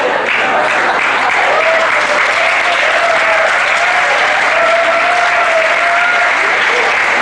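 Audience applauding loudly and steadily, with a voice or two sounding faintly over the clapping.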